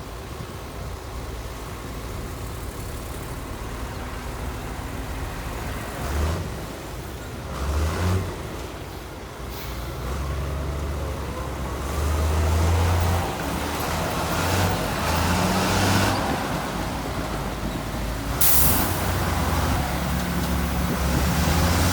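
Heavy diesel earthmoving machinery running, with low engine rumble that grows louder from about halfway through and rises briefly a few times. A short, sharp air-release hiss, like a truck's air brake, sounds near the end.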